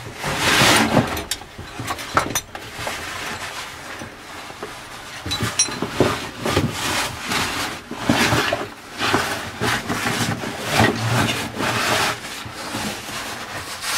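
Caving bag and caver's suit scraping and rubbing against the rock as a caver squeezes through a tight passage, in irregular bursts of scraping and shuffling.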